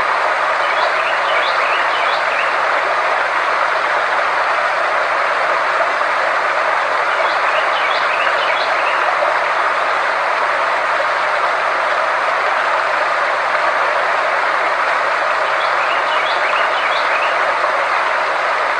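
Sound-therapy track: a steady rushing noise with a low, even hum beneath it. A faint cluster of short, high chirps comes back about every seven to eight seconds, as a loop would.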